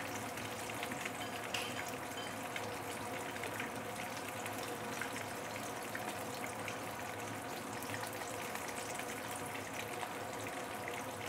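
Hot oil sizzling and crackling steadily around a whole fish shallow-frying in a deep non-stick pan, near the end of frying as the skin crisps and chars.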